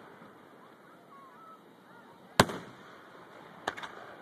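Aerial firework shells bursting: one sharp bang with an echoing tail about halfway through, then a quick run of smaller cracks near the end.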